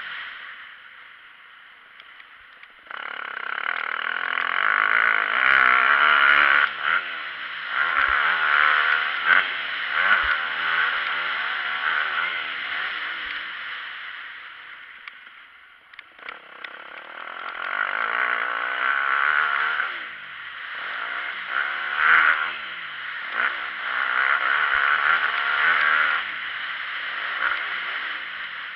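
Motocross bike engine revving up and down as the bike is ridden over a dirt track, heard from the rider's helmet. It is quieter for the first three seconds and dips again around halfway before picking back up.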